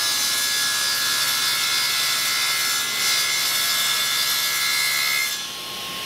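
Table saw with a carbide-tipped blade cutting through 1/4-inch aluminium plate: a steady high whine with a hiss, which drops to a lower level a little past five seconds in.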